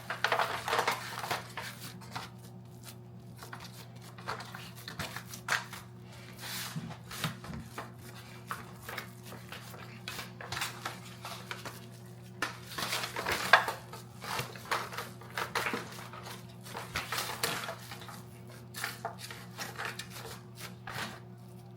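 Irregular crinkles and light clacks of a disposable aluminium foil baking pan as meatloaf mixture is packed into it, with one sharper clack about two-thirds of the way through. A steady low hum runs underneath.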